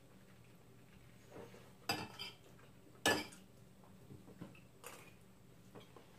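A fork clinking and scraping against a plate while salad is eaten, with a few sharp clinks about two and three seconds in and fainter taps later.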